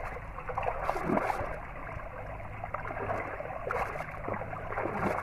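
Water splashing and sloshing in irregular surges as a person wades through a shallow stream, pushing a bamboo-framed fishing net through the water.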